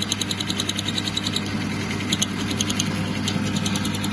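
Myford lathe running under power feed, its chuck-held cutter milling out a hole in a tow-hitch bracket on the Mini Mill attachment: a steady motor hum with a rapid, even ticking from the cut and the drive.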